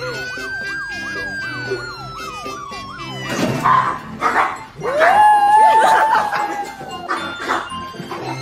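Siren sounding, its pitch sweeping rapidly up and down for about three seconds alongside a long sliding wail, over background music. About halfway through, a small dog howls along, a rising cry held wavering for about two seconds.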